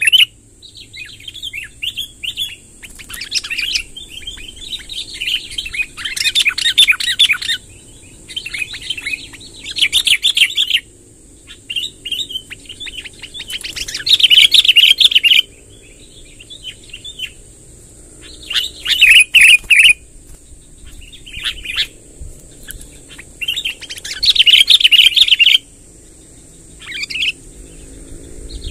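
Sooty-headed bulbul (kutilang) singing in loud bursts of rapid chattering notes, each phrase lasting one to two seconds with short pauses between, repeated through.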